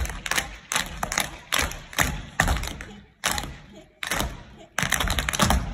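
Tap shoes of several dancers striking a wooden floor in quick, irregular clusters of sharp taps, with brief pauses a little past halfway.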